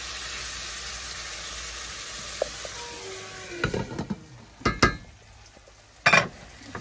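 Peas, carrots and minced meat sizzling in butter in a stainless steel pan, stirred with a wooden spoon. After about three and a half seconds the sizzle fades and a few sharp knocks and clatters of utensils against the pan follow, the loudest about six seconds in.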